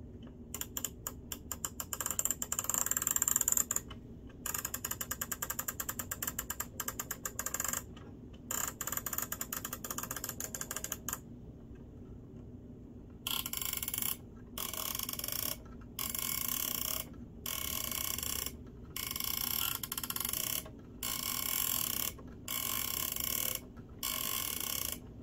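Time-set knob of a vintage Panasonic flip alarm clock being turned, its plastic number cards flicking over in rapid clicks for about ten seconds with two short pauses. After a brief lull come about eight evenly spaced rasping bursts, each about a second long.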